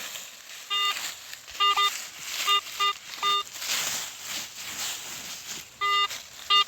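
Metal detector sounding short, steady-pitched target beeps, about eight in irregular clusters, as its coil is swept back and forth over a target in a dug hole. Rustling and scraping noise runs underneath.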